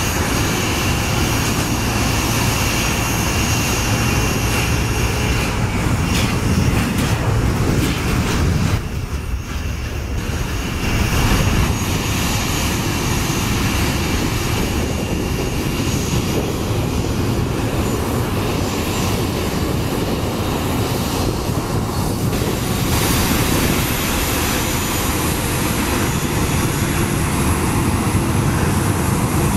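Boeing 737-800's CFM56-7B jet engines running at idle while the airliner holds position on the taxiway: a steady whine with high tones over a low rumble, briefly quieter about nine seconds in.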